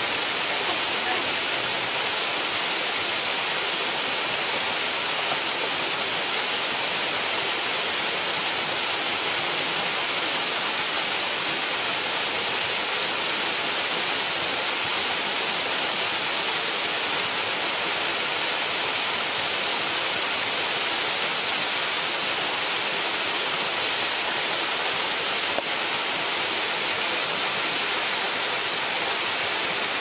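Waterfall pouring steadily: an even, unbroken rush of falling water, mostly a bright hiss.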